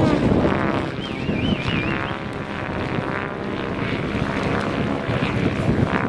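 Strong wind buffeting the microphone over the whir of an electric Minicopter Diabolo model helicopter's rotors as it flies aerobatics overhead. A brief wavering high whine comes in about a second in.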